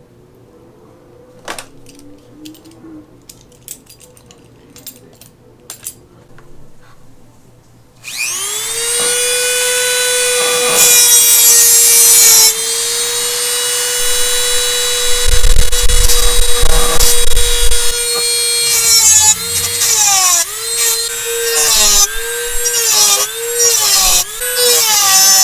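Dremel rotary tool with a cutting wheel: a few light clicks, then about eight seconds in it starts and spins up to a steady high whine. Over the last several seconds the whine dips in pitch again and again as the wheel bites into the part being cut.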